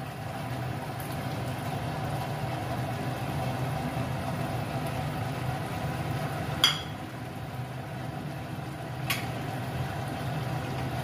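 Steady low hum over a pan of gravy simmering on a gas stove, with a sharp knock of a utensil against the pan about two-thirds through and a lighter knock a couple of seconds later, as fried paneer cubes go into the pan and a wooden spatula stirs them in.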